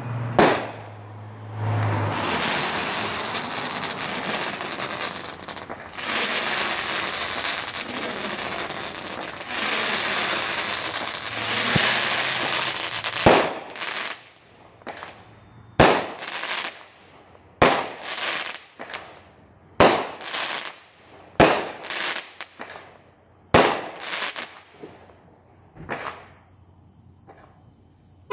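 Fireworks going off: about ten seconds of dense, continuous crackling, then a run of single sharp bangs, one every one and a half to two seconds.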